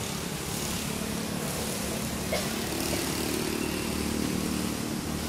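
A motor engine running steadily, its hum getting a little stronger about halfway through.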